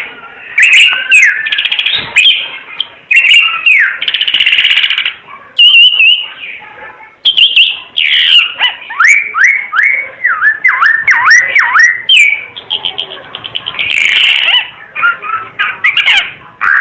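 Timor figbird (green figbird) singing: loud, fast chattering phrases mixed with a run of repeated downward-sliding whistles in the middle.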